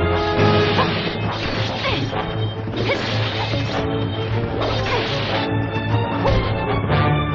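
Fight sound effects, a run of blows and crashes, over a dramatic music score with a steady low bass line.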